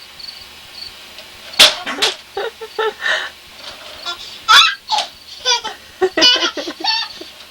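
A baby squealing and laughing in short, high-pitched bursts, with a sharp knock about a second and a half in.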